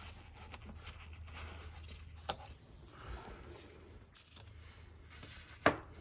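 Plastic engine oil filler cap being unscrewed and lifted off by a gloved hand: quiet scraping and handling noise, a click about two seconds in, and a sharp knock near the end.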